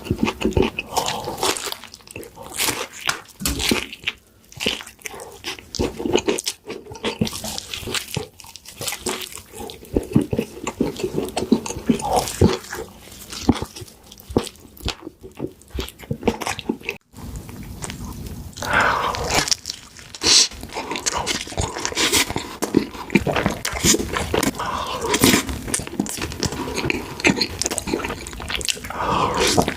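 Close-miked eating sounds of burgers and fast food: bites, crunching and wet chewing with lip smacks, in irregular clicks and squelches. The character of the sound shifts about 17 seconds in as one eater's clip gives way to another.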